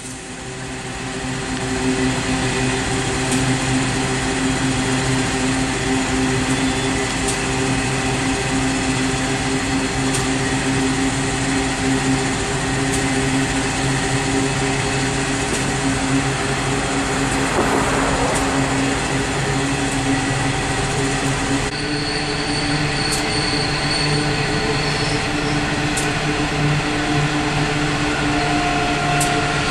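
Diesel-electric locomotives hauling a loaded coal train, their engines running in a steady drone that fades in over the first two seconds. About three-quarters through, the engine pitch steps up slightly and a thin high wheel squeal is heard for a few seconds.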